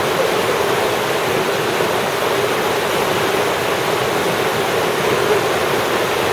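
Fast-flowing river rapids rushing: a loud, steady wash of white water with no break.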